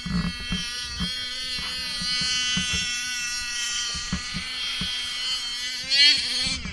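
Radio-controlled truck's electric motor and drivetrain whining as it drives through deep snow, the pitch shifting with the throttle and sweeping up sharply near the end as it speeds up, over irregular low thumps.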